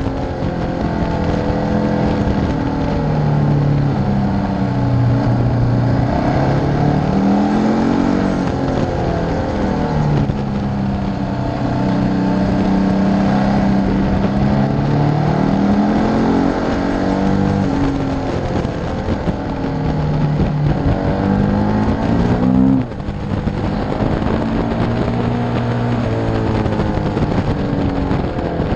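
KTM LC8 V-twin motorcycle engine under way, revving up and dropping back again and again as the rider works the throttle and shifts gears through the bends, with a rush of wind noise over it. About three-quarters of the way through the revs climb and then cut off sharply as the throttle snaps shut.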